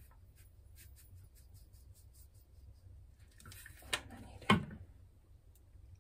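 Plastic shaker bottle of potato starch being shaken over a measuring spoon: a run of faint quick ticks, then two sharp knocks about half a second apart around four seconds in.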